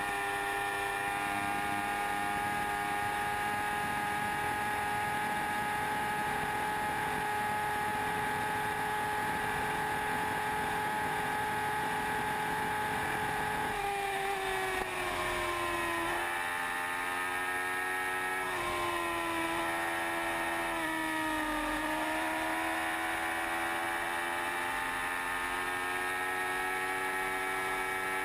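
Sport motorcycle engine running at high revs at full speed, with wind rushing past. About halfway through the pitch drops and climbs back several times before holding steady again.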